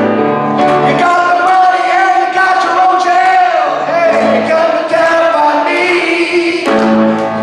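Live gospel-style song: a voice sings a melody with vibrato over piano chords.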